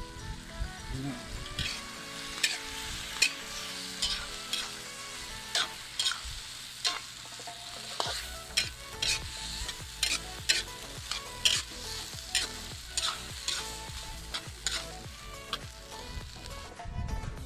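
Metal spatula stirring egg and vegetables in a steel wok, with a steady frying sizzle and sharp clinks and scrapes of the spatula against the pan, one or two a second.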